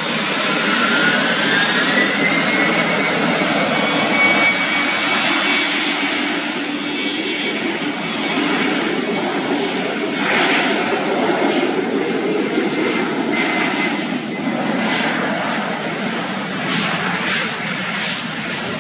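Jet airliner engines running at high power: a whine that rises in pitch over the first couple of seconds and then holds steady, over a continuous loud roar.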